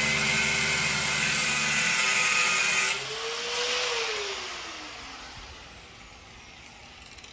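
Grinder cutting a bolt off the truck's e-brake bracket, where it fouls the new rear shock. A harsh, loud, steady grind stops suddenly about three seconds in, then the motor winds down with a whine that rises briefly and falls away.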